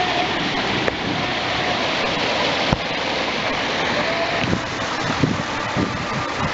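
Steady rushing of sea water and wind, with gusts buffeting the microphone in the second half and a single knock a little under three seconds in.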